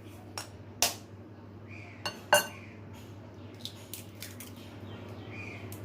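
Sharp clinks and taps of kitchen utensils against a bowl. The two loudest come about one second and two and a half seconds in, with lighter taps later on.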